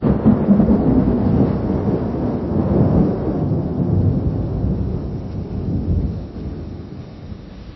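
Lightning strike followed by thunder: a sudden strike at the start, then a long, low rolling rumble that swells again about three seconds in and slowly fades away.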